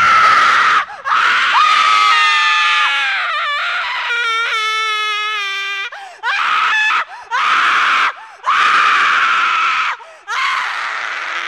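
A run of loud, high screams one after another, with brief breaks between them; some are held on one pitch and some slide downward.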